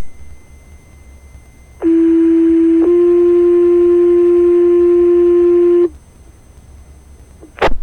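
Two-tone sequential fire pager tone-out heard over a Baofeng UV-5R scanner: a steady tone of about a second, then a slightly higher tone held for about three seconds, the alert that sets off the firefighters' pagers before the voice page. A short radio squelch burst sounds at the start and again near the end.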